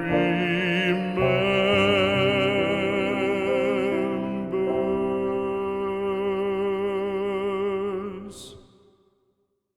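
Classical art song: a singer holds long notes with a wide vibrato over the accompaniment, and the music dies away about eight and a half seconds in.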